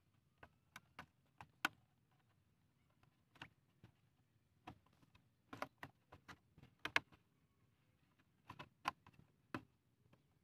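Thin plastic bottle clicking and crackling as it is handled and worked by hand: irregular sharp clicks, some single and some in quick clusters.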